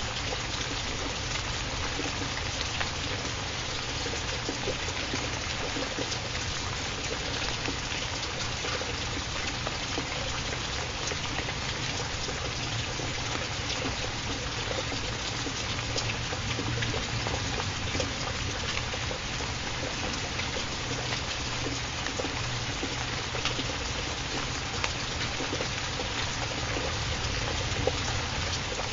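Steady sound of falling or running water: a continuous, even hiss dotted with small scattered drip-like ticks.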